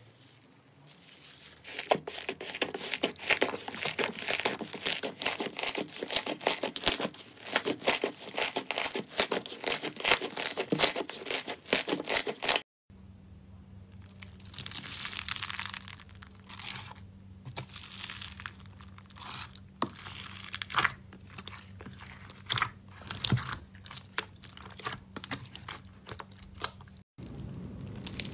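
Slime being pressed and squished by hand, making crackling, crunching and popping sounds. The first half is a dense, fast crackle; after a cut about halfway in, the squishing is softer and sparser over a low steady hum.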